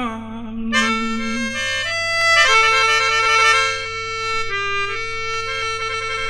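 Instrumental break in an Isan luk thung song: a reedy wind instrument plays a melody over a steady held drone note. A low held note ends about a second and a half in.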